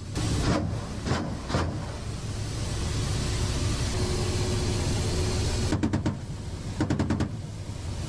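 Helicopter cannon firing short bursts of a few rounds each, over the steady rushing noise of the helicopter heard from inside the cockpit. There are shots about half a second and a second and a half in, a few seconds of steady noise with no shots, then two quick bursts near the end.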